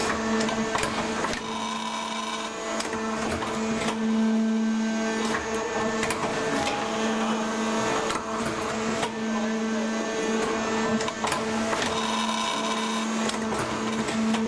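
WEIMA TH900S hydraulic briquetting press running while it compacts shredded car interior trim: a steady hum from its drive, with scattered light clicks and knocks.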